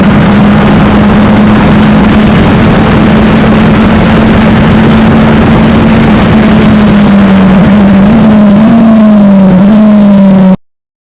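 Onboard sound of a Wolf GB08 prototype race car's engine, very loud and holding a steady pitch over a dense rushing noise. The pitch wavers slightly near the end before the sound cuts off abruptly.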